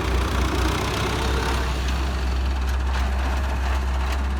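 Excavator's diesel engine running at a steady, even speed, a constant low hum.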